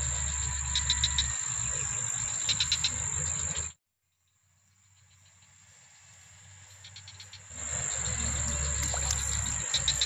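Outdoor insect chorus: a steady high-pitched buzz with short trains of rapid chirps repeating every second or so, over a low rumble. The sound cuts out abruptly about four seconds in and fades back up, full again by about seven and a half seconds.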